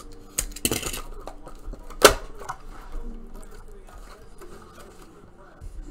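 Shrink-wrap on a cardboard trading-card box being slit with a box cutter and torn away, with crinkling in the first second and a single sharp snap about two seconds in, then lighter rustling as the box is handled and opened. Faint music plays underneath.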